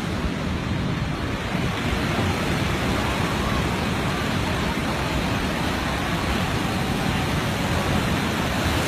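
Heavy storm surf breaking in a steady wash of noise, with wind buffeting the microphone, building slightly toward the end.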